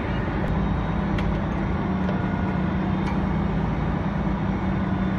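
A vehicle engine running steadily, a constant low hum over loud outdoor noise.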